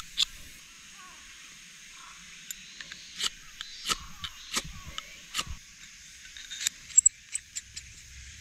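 Ferrocerium rod of a fire starter scraped with the serrated edge of its steel striker: one strike at the very start, then four more about two-thirds of a second apart around the middle. Near the end come a few light clicks as the striker is fitted back onto the top of the rod.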